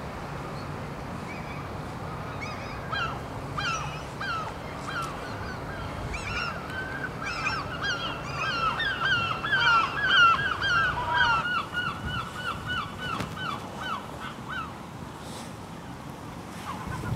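A flock of birds calling: many short, overlapping honk-like calls that grow denser about halfway through, then thin out and stop a couple of seconds before the end, over a steady background noise.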